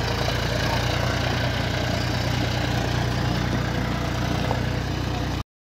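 Tractor diesel engine running steadily at idle. The sound cuts off abruptly near the end.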